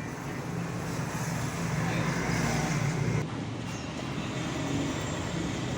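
Steady background traffic noise with a constant low engine hum.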